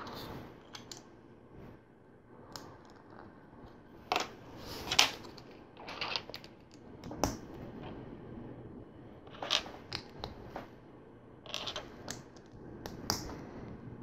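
Plastic LEGO bricks handled and pressed together: scattered clicks and short rattles, one every second or so.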